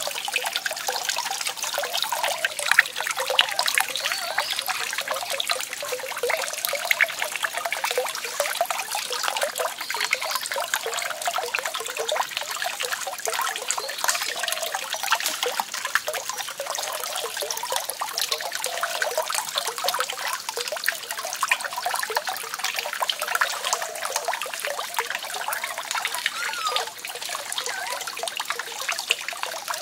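Water trickling and splashing steadily, without pause.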